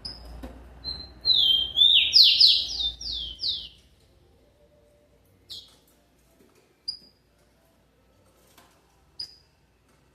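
Rufous-collared sparrow (tico-tico) singing: a slurred whistle followed by a short trill of about six quick falling notes, then single high chirps every second or two.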